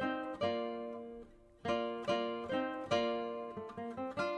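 Background music of plucked guitar, single notes and chords each struck and left to ring, with a short pause about a second and a half in.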